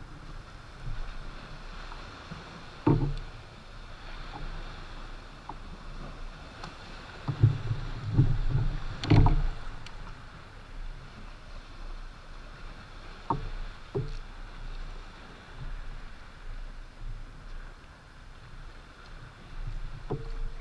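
Water lapping against a plastic kayak hull with wind on the microphone, broken by occasional knocks and bumps on the boat, loudest in a cluster of heavy thumps about seven to nine seconds in.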